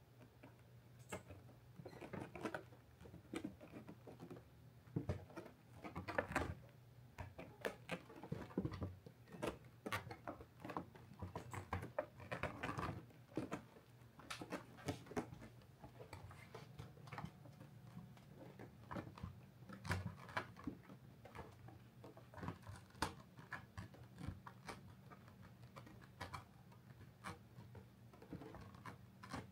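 A kitten moving about inside a felt cat cave: irregular soft scratching and rustling of its paws against the felt, over a faint steady hum.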